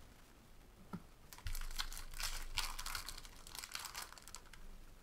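Foil wrapper of a 2018 Topps Update baseball card pack crinkling as it is torn open and handled, beginning about a second and a half in after a single light tap.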